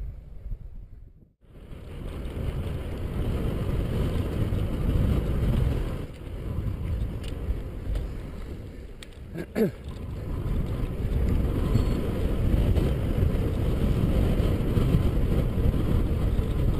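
Wind rumbling on the microphone of a bike-mounted camera while riding, after a brief break about a second in. A car passes about nine to ten seconds in, with a short, loud pitched sweep.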